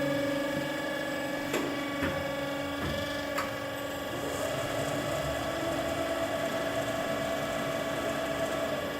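Berg & Schmid GBS 305 VAI CNC automatic metal band saw running, a steady machine hum and whine. There are a few sharp clicks in the first half. About four seconds in, the whine steps slightly up in pitch and then holds steady.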